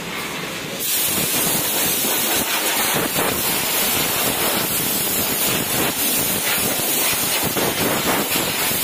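Compressed-air blow gun hissing loudly and steadily as it is blown into a car's open engine bay, starting about a second in.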